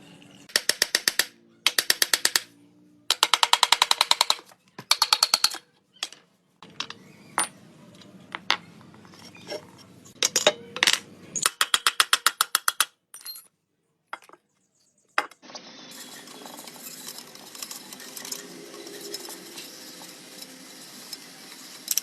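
Socket ratchet clicking in several rapid bursts, the clicks fast and evenly spaced, with abrupt breaks between the bursts. A steady hiss fills the last few seconds.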